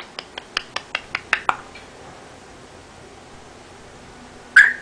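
Talking parrot making a quick run of sharp clicks, about five a second, for the first second and a half, then one short loud call near the end.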